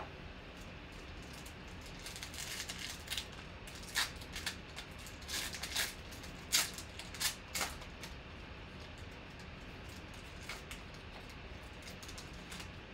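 Foil wrapper of a 2020 Panini Chronicles basketball card pack crinkling and tearing as it is ripped open by hand. It comes as a run of sharp crackles over several seconds, then a few fainter crackles near the end as the cards come out.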